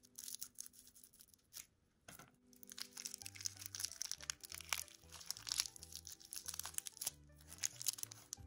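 Crinkling and tearing of a thin plastic lollipop wrapper as it is cut and peeled off by hand, in quick crackly bursts, over background music with a steady bass line.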